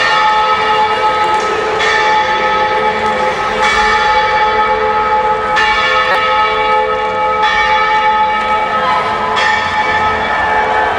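A church bell tolling steadily, struck about every two seconds, each stroke ringing on into the next.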